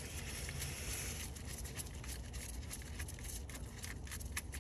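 Light clicks and taps of hands working on engine parts, with a short scraping hiss in about the first second. A faint steady low hum runs underneath.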